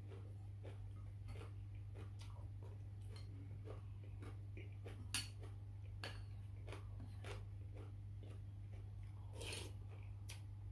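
Eating noodle soup: utensils clicking and tapping against the bowl at irregular short intervals, with one louder clink about halfway, over a steady low hum.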